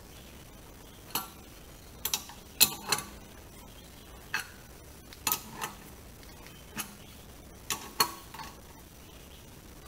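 Sharp metal clicks and clinks, about a dozen at irregular intervals, as a wrench is fitted and turned on the nut of a threaded-rod press pulling a new rear axle bushing into the beam.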